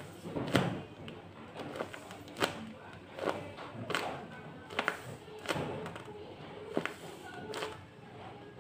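Background music with irregular sharp thuds and taps, roughly one a second.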